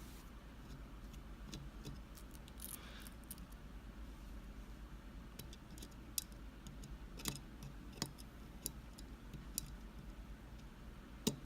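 Light metal clicks and a brief scrape from a small screwdriver working screws out of a Mul-T-Lock Junior lock body. The clicks are faint and irregular, about a second apart.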